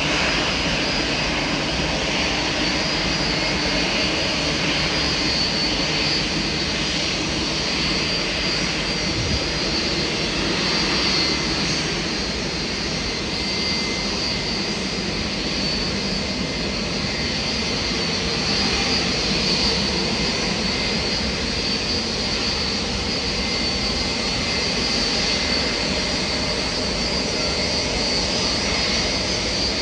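Jet airliner engines running steadily: a high whine over a continuous rushing rumble.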